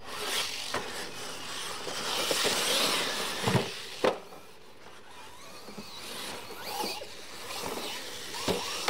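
Losi LMT radio-controlled monster trucks racing on dirt: electric motors whining and tyres scrabbling and spraying dirt. Sharp thuds come about three and a half and four seconds in as a truck lands hard and tumbles, with another knock near the end.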